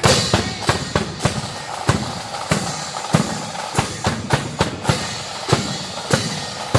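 Marching band playing, led by its drums: a bass drum beating roughly every 0.6 seconds with snare drum strokes between.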